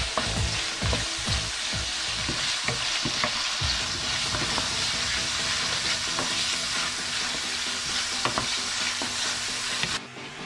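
Vegetables stir-frying in a nonstick skillet: a steady sizzle, with a wooden spatula scraping and clicking against the pan. The sound drops away abruptly near the end.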